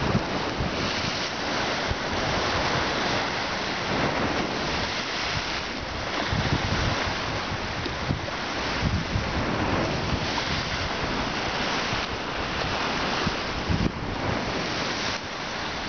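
Choppy sea waves washing and splashing against the stone blocks of a breakwater, with gusty wind buffeting the microphone.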